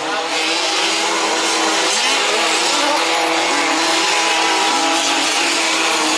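Several 1/5-scale RC off-road trucks racing, their small two-stroke petrol engines buzzing together at high revs, overlapping pitches shifting up and down slightly.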